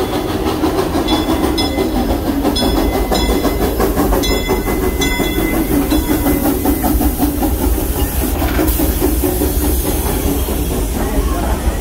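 Narrow-gauge steam locomotive No. 504 rolling slowly past at close range, its wheels clicking over the rail joints. Short ringing notes sound every half second or so in the first half, and a brief burst of steam hiss comes a little past the middle.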